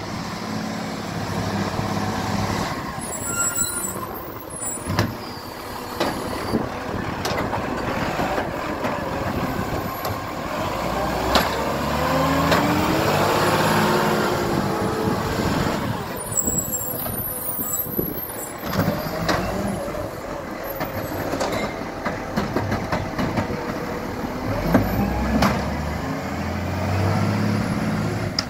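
Side-loader garbage truck's diesel engine running as it pulls up, with a rising and falling whine in the middle as the engine revs to work the hydraulic bin arm. There are short air-brake hisses and a few sharp knocks.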